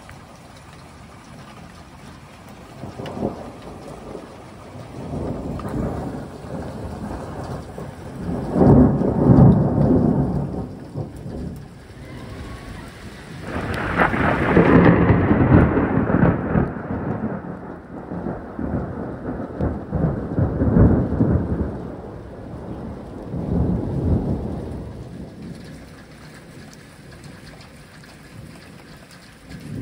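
Steady heavy rain with repeated rolls of thunder that swell and fade. The loudest rolls come about nine seconds in and again around fourteen to sixteen seconds, with smaller ones between.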